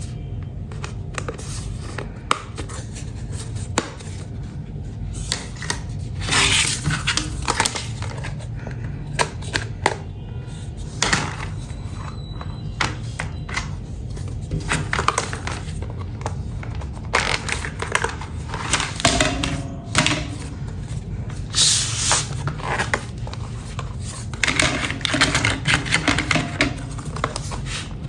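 Plastic toy pieces being handled, clicking, knocking and scraping together irregularly, over a steady low hum.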